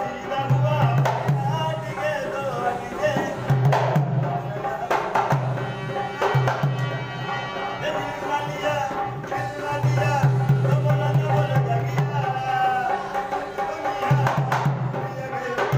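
Indian music with a hand drum beating a steady, repeating rhythm under a wavering melody.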